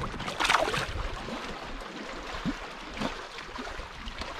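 A short splash of water at the side of a fishing kayak about half a second in, as a hand comes up out of the lake after releasing a bass, then a few light gurgles and drips of water against the hull.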